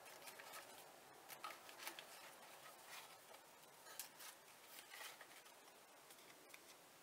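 Faint rustling and a few soft clicks of paper handling, as paper flower embellishments are picked through and lifted by hand.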